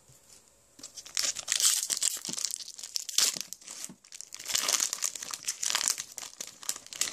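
Foil Pokémon booster pack wrapper crinkling and tearing as it is opened by hand, starting about a second in, in two spells with a short pause between them.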